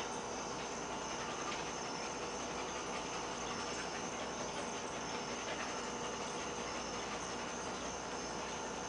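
Steady room tone: an even hiss with faint steady high-pitched tones and no distinct events.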